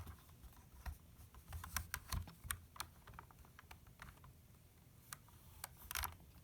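LEGO plastic pieces clicking and tapping as a LEGO puzzle box is handled and its parts are tried: a scattered run of small, faint clicks, busiest about two seconds in, with a louder cluster near the end.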